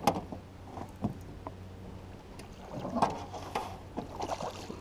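A hooked bass splashing and thrashing at the water's surface beside the boat as it is played in. There are a few sharp clicks, one at the start and one about a second in, and the splashing is loudest about three seconds in.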